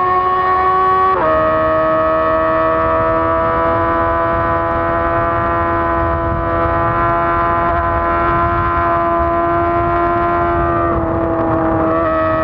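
2006 Honda CBR600RR's inline-four engine running at high, steady revs under way. Its pitch drops suddenly about a second in, as on an upshift, then holds steady, with wind rush underneath.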